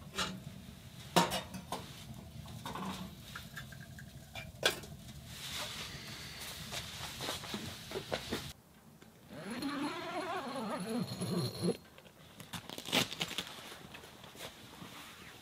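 Sharp metal clinks and knocks from a kettle being handled on a small wood stove, the two loudest about one second and about five seconds in. Later, a wavering pitched sound lasts about three seconds.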